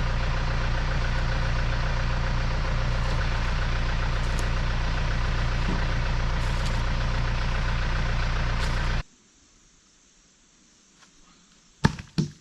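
John Deere 970 compact tractor's diesel engine running steadily, cut off abruptly about nine seconds in. A couple of sharp knocks follow near the end.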